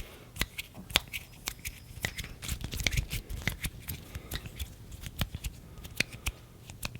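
Close-miked ASMR hand sounds: quick, irregular clicks and crackles of skin on skin, several a second, as the hands rub and move against each other.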